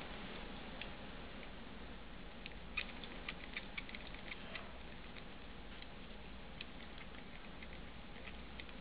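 Faint, irregular metallic clicks and ticks of a lock pick working the pins of a small 30 mm padlock under a tension wrench, thickest a few seconds in.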